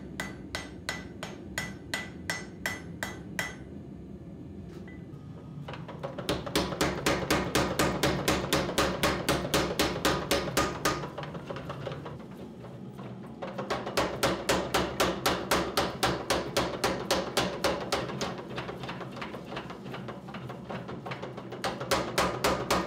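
Hand hammer striking hot steel on an anvil, about three ringing blows a second, forge-welding the edge steel into the axe. After a few seconds a mechanical power hammer takes over, pounding the glowing axe head in fast even runs of about six blows a second over the hum of its running motor, stopping and starting twice.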